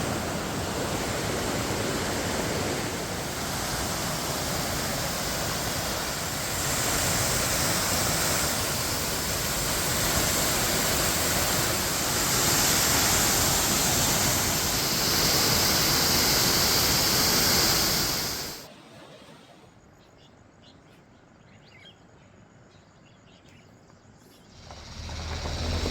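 Waterfall rushing, a steady even wash of water noise. About three-quarters of the way through it cuts off abruptly, leaving a quiet stretch with a few faint high ticks, and the rush comes back just at the end.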